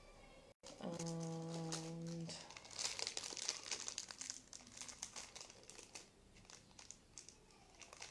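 Crinkling of wrapping or packaging being handled, densest from about three to six seconds in. It is preceded about a second in by a brief steady hum.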